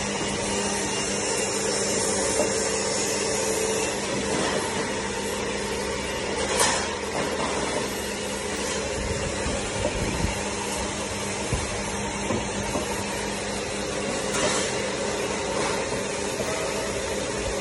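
Handheld laser welder running a seam weld on sheet steel: a steady hum and hiss from the welding machine, with a few brief sharper crackles along the way.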